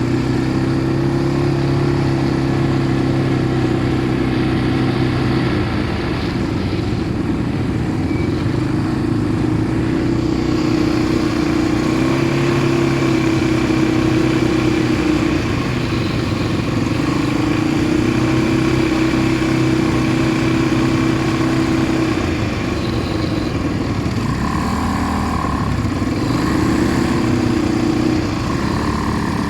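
ATV engine running under way. Its pitch drops and climbs back several times as the throttle is eased and opened.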